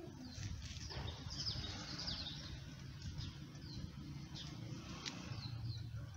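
Small birds chirping repeatedly: many short, high calls that slide downward, most dense in the first half, over a steady low background rumble.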